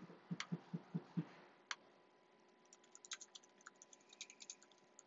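Faint, light clicks and taps of a stylus on a tablet's glass screen, with a quick cluster of small sharp clicks in the second half. A few soft low thumps come in quick succession during the first second.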